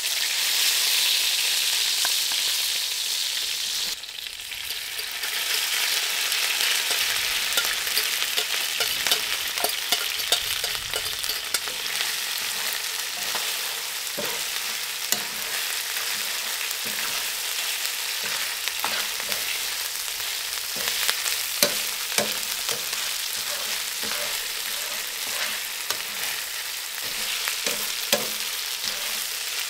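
Chicken and rice sizzling in hot chicken grease in a skillet. The sizzle drops briefly about four seconds in. From about seven seconds on, a metal fork clicks and scrapes against the pan as the rice is stirred.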